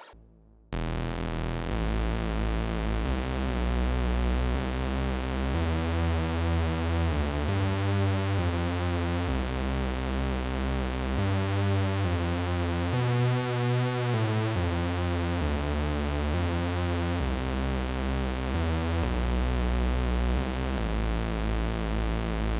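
Roland PROMARS Plug-Out synthesizer preset playing a low bass line one note at a time, the pitch stepping to a new note about once or twice a second, with a steady hiss above it. It starts just under a second in.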